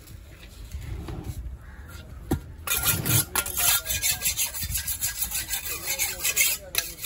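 A large curved fish-cutting knife being sharpened on a flat sharpening stone: steel rasping on stone in quick, repeated strokes that start a little under three seconds in and keep going.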